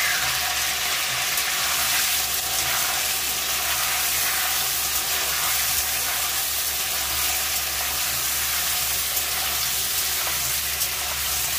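Yam cubes frying in hot mustard oil in a steel kadhai, a steady sizzle, while a metal spatula stirs them.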